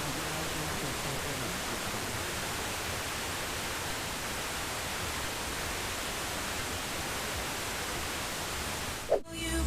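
Steady radio static hiss from a weak off-air signal. About nine seconds in it cuts off suddenly with a short click.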